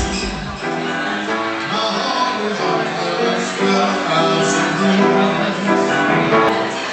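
Background music: a melodic instrumental track with sustained chords, its deep bass dropping out about half a second in.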